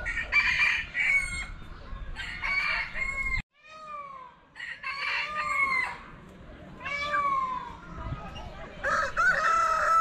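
Several roosters crowing one after another, their calls overlapping, with a brief gap about a third of the way in and a long drawn-out crow starting near the end.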